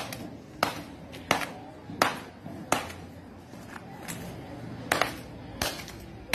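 A hammer repeatedly smashing a mobile phone on a concrete courtyard floor: sharp, regular blows about one every 0.7 seconds, with a brief pause around the middle.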